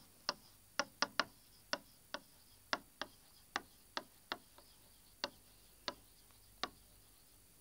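Pen tip tapping and clicking against a writing board as a phrase is written: a string of sharp, irregular ticks, two or three a second.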